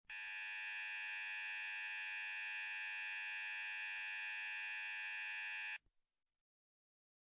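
Harsh electronic alert buzzer sounding one steady, unbroken tone for about six seconds, then cutting off suddenly.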